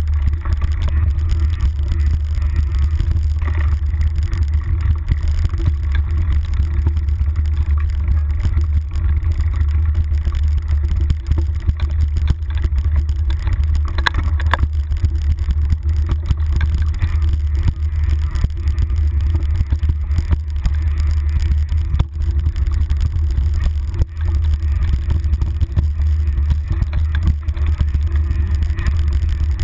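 Mountain bike riding fast down a dirt trail, heard through a handlebar-mounted GoPro: a steady low rumble of wind and ride vibration, with constant small knocks and rattles as the bike rolls over the rough ground.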